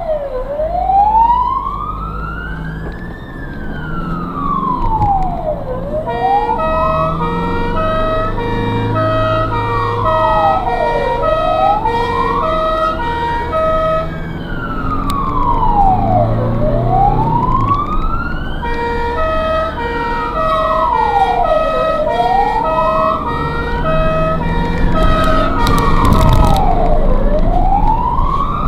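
Ambulance siren wailing from the vehicle's own roof, sweeping slowly up and down about every five seconds. For most of the time a second tone pulses on and off alongside it in steady steps, over the low rumble of the engine and road, and a short harsh burst sounds near the end.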